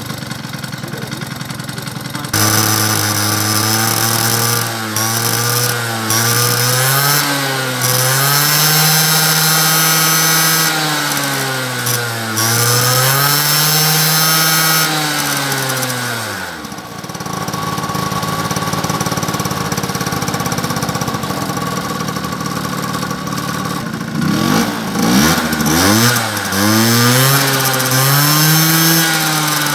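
Motor scooter engine, exhausting through a chrome aftermarket silencer, revved up and down repeatedly with the rear wheel spinning free on its stand. It drops to a steady idle about halfway through, then is revved a few times again near the end.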